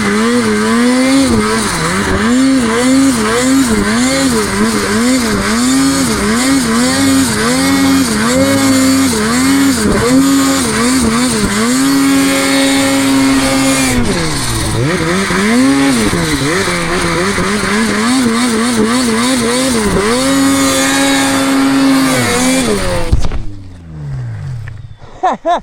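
Snowmobile engine revving hard in quick throttle blips, its pitch rising and falling over and over, with a few longer steady holds at high revs. It cuts off sharply near the end.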